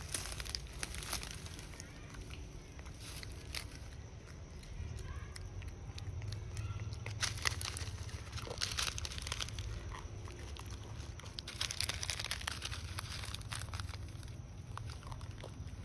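Plastic snack wrapper crinkling and crackling in irregular spells as a macaque handles it and chews at it.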